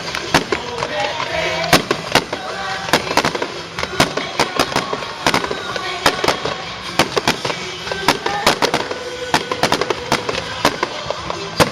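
Fireworks bursting in a dense, rapid barrage of sharp bangs and crackles, several each second, with music playing underneath.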